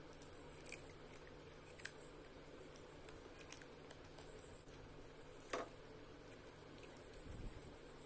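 Faint hand-eating sounds: fingers squishing and mixing rice and curry against a stainless steel plate, with scattered small clicks, the sharpest about five and a half seconds in. A soft low thump comes near the end.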